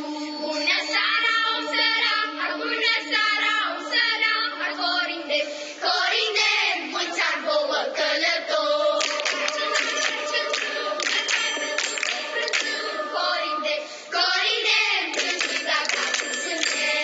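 Children's choir singing, with rhythmic hand-clapping joining in from about halfway.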